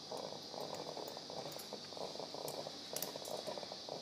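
Steady operating-room hiss with faint crackling and a few light clicks of steel surgical instruments (needle holder and forceps) as a skin incision is sutured.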